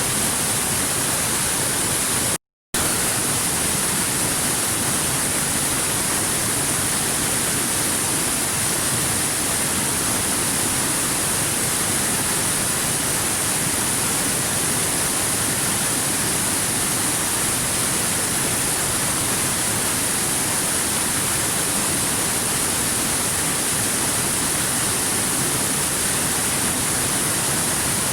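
Stream water rushing steadily over rocks, an even hiss with a bright, high edge. It cuts out completely for a split second about two and a half seconds in.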